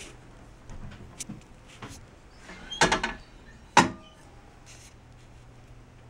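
Hinged aluminium hopper cover of a Royal commercial vegetable slicer being handled and shut against the housing, with a few light clicks and then sharp metal clanks: a cluster about three seconds in and a single louder one just before four seconds, each ringing briefly.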